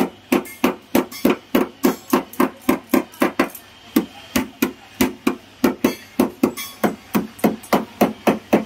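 Hammering: a rapid, steady run of hammer blows, about three to four a second.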